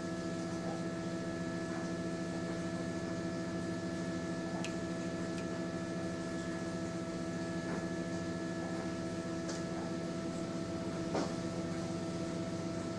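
Electric egg incubator running with a steady motor hum, with a few faint clicks.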